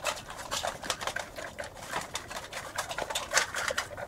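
Dog eating dry kibble from a metal bowl: a fast, irregular run of crunches and clicks.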